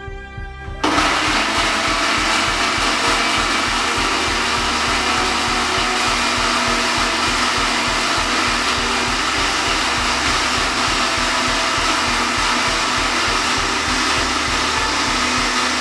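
Countertop electric blender switched on about a second in and running steadily, puréeing cooked chicken and carrots into a smooth sauce.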